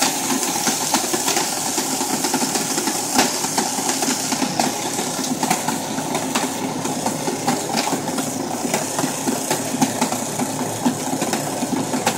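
Robot Coupe R2 food processor running, its blade grinding dry ice down to a fine powder: a steady motor drone with a hiss and many sharp clicks of ice pieces striking the bowl.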